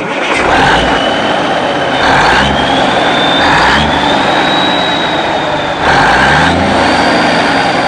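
2023 Hess Police Truck toy's sound chip playing its engine startup sequence: a recorded heavy truck engine starts and runs, swelling in a few revs, with a thin high whine gliding upward through it.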